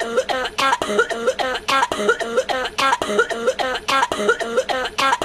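Rapid, repeated coughing, about three coughs a second at an even spacing and steady loudness.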